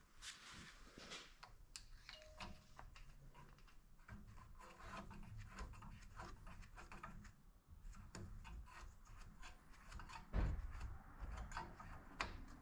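Faint handling noises while engine oil is being added to a small snowblower engine: scattered light clicks, taps and rubbing, with one louder dull thump about ten seconds in.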